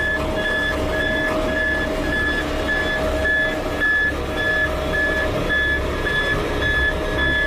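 Backup alarm of a Sakai SV521DF single-drum vibratory road roller beeping steadily, about twice a second, over the low, even rumble of the roller's diesel engine.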